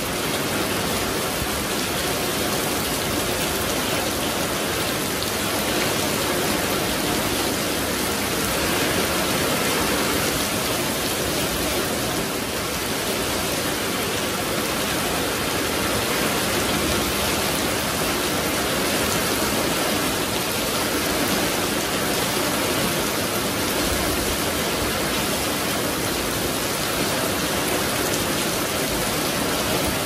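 Heavy rain pouring steadily onto a wet concrete yard and leafy plants, a dense, even hiss without a break.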